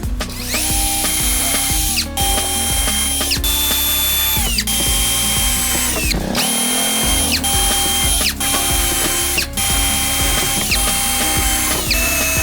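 Electric drill running in about eight short bursts of roughly a second each, a steady whine that drops in pitch at the end of each burst, over background music.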